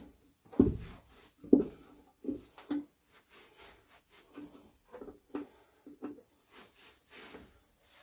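Cloth and gloved hand scrubbing inside the metal combustion chamber of a Vaillant gas wall boiler: rubbing with irregular dull knocks as the hand bumps the chamber walls, the two loudest in the first two seconds and lighter ones after.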